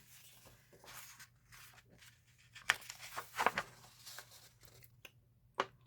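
Paper rustling and crinkling in several short, quiet bursts as a folded album lyrics sheet is handled and unfolded.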